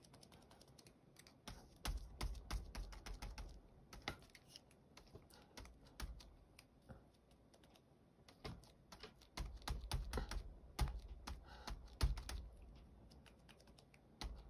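Quick, irregular clusters of light taps and clicks with soft thumps on a tabletop, busiest in two spells: about two seconds in and again from about eight and a half to twelve seconds in.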